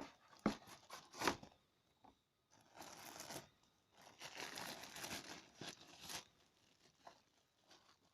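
Hands handling a product box and its packaging: two light knocks early on, then two stretches of rustling and crinkling around three seconds in and from about four to six seconds in.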